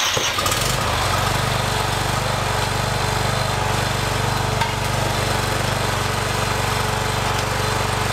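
McCulloch riding lawn mower's engine having just caught, running steadily at a constant speed.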